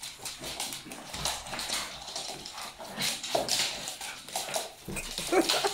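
Excited dog jumping up to greet a man, its claws clattering and scrabbling on a wooden floor, with short whines about three and five seconds in.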